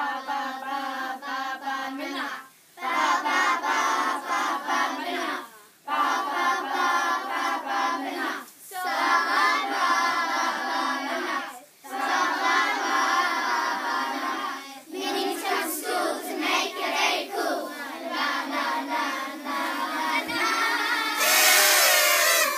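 A group of children singing together in phrases of about three seconds with short breaks between them, ending in a burst of cheering near the end.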